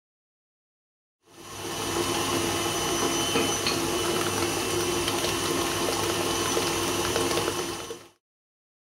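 Stand mixer motor running steadily as it beats cake batter in a stainless steel bowl. It starts about a second in and cuts off near the end.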